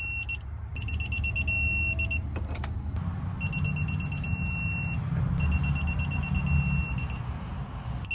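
Digital torque wrench beeping while a flare nut is tightened: several runs of rapid high-pitched beeps with short pauses between, and a held tone about two seconds in. This is the wrench's alarm that the set torque is being reached.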